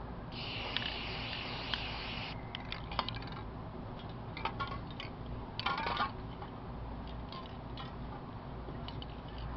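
Aerosol spray paint can hissing steadily for about two seconds as paint is sprayed, then stopping abruptly. It is followed by scattered light clicks and a brief rustle about halfway through.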